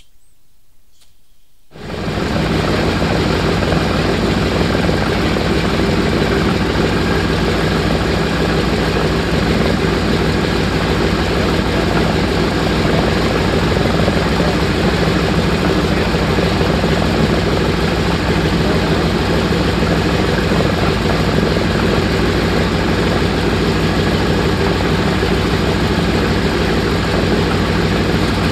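B-17 bomber's R-1820 nine-cylinder radial engines running steadily with propellers turning, a loud, even drone that comes in abruptly about two seconds in after a quieter start.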